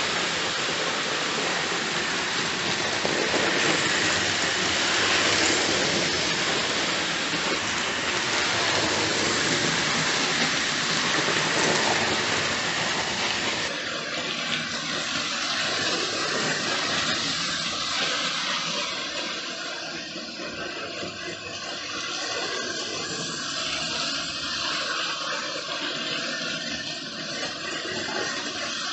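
Hornby OO gauge model steam locomotives (LMS Stanier Class 5s) running round the layout, their motors and wheels on the track making a steady rushing noise. The sound changes abruptly about fourteen seconds in.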